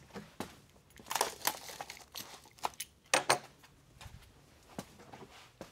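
Packing material crinkling and rustling as it is handled, in a few irregular bursts, the loudest about a second in and about three seconds in, with a few light knocks between.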